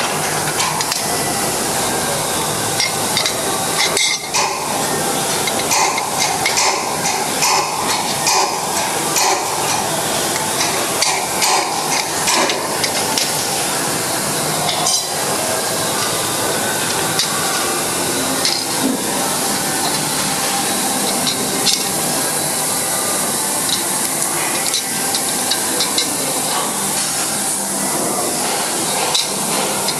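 Irregular metal clinks and ticks of a wrench working the bolts that hold the crusher's blades, over a steady noisy background hiss.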